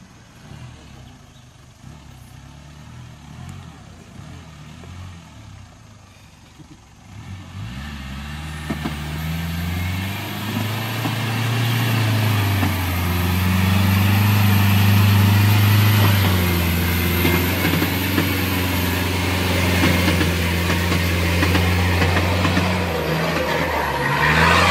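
4x4 pickup truck's engine running faintly at first, then revving up about a third of the way in and held at high revs under heavy load as the truck ploughs through deep mud. The revs dip and climb again near the end.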